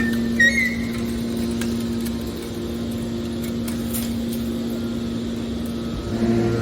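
Hydraulic scrap-metal baler's motor and pump running with a steady hum, with a short high squeak about half a second in.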